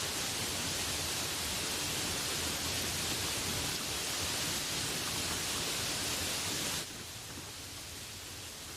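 Steady hiss of heavy rain, with no birdsong to be heard. About seven seconds in it drops suddenly to a softer, duller hiss.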